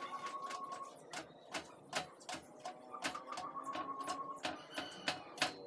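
Irregular sharp metal clicks and knocks as the oil tank is handled and fitted onto the steel stove frame.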